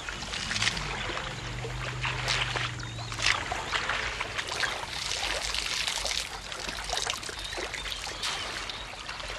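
African elephants drinking at a waterhole: water trickling and splashing from their trunks, in a run of irregular splashes.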